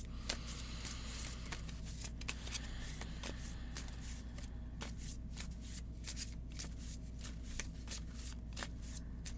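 A deck of message cards being shuffled by hand: a rapid, irregular run of small card snaps and slides, with a soft riffling hiss in the first second or so.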